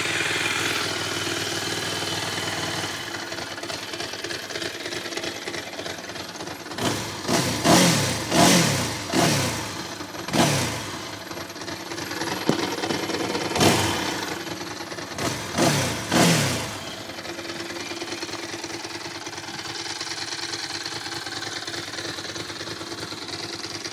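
Ducati SS1000DS air-cooled L-twin idling, then revved in a string of quick throttle blips, each sharp rise and fall in revs, before settling back to a steady idle.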